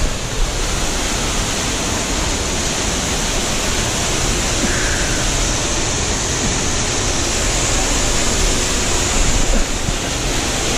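Waterfall and cascading brook water rushing steadily, a loud, even wash of falling water.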